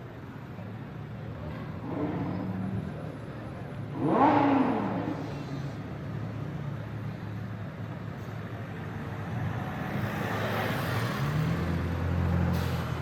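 Car engines in the street: a steady low idle, a vehicle passing close about four seconds in with its pitch falling as it goes by, and an engine revving up near the end.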